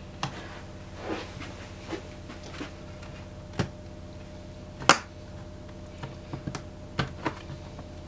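Plastic clips of an Acer Aspire 3 laptop's base cover snapping free as a plastic pry tool is worked along the seam: a series of sharp, uneven clicks, the loudest about five seconds in.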